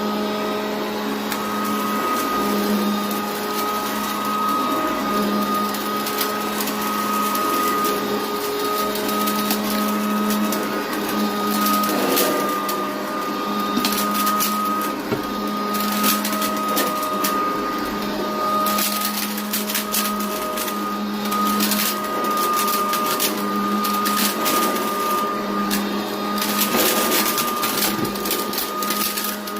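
Hoover Decade 80 upright vacuum cleaner running steadily, a high motor whine over a lower hum that swells and fades every second or two, with many scattered clicks and rattles.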